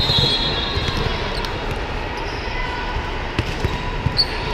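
Volleyballs being struck and bouncing, with sharp thuds scattered through, over the steady din of a large hall. A referee's whistle sounds briefly at the start as the server readies, and a short squeak comes near the end.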